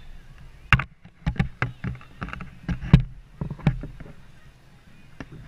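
Handling noise from the camera: a run of about a dozen irregular knocks and clicks over roughly three seconds as it is turned on its mount.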